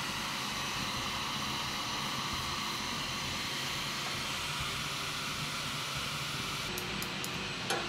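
Steady hissing of red-hot steel being quenched in a can of oil, with a few sharp clicks near the end.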